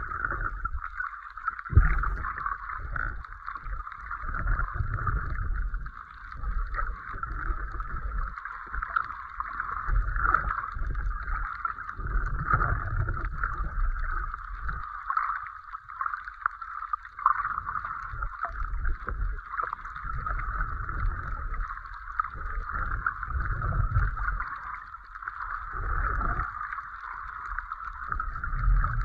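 Muffled underwater sound from a camera held below the surface: a steady hiss with irregular low rumbling surges of water moving against the camera.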